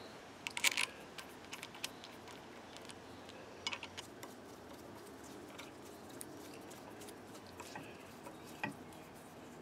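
A few scattered, faint clicks and light metal taps from handling a machined aluminium block with a steel rod set through its centre hole, over quiet shop background.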